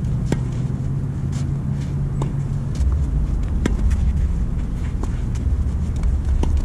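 Tennis balls being struck by rackets and bouncing during a rally: about five sharp pops, one every second or two. Under them runs a steady low rumble that gets louder a little before halfway.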